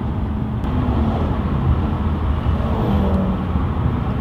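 Car engines running in street traffic, a steady low rumble with no sharp rise in level.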